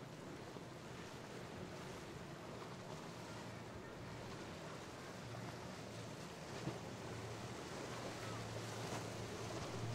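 Boat engine drone over steady surf and wind, the engine growing louder through the second half as the boat draws nearer.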